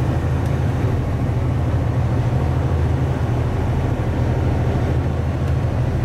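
Steady low drone of a semi-truck's diesel engine and road noise at highway cruise, heard inside the cab.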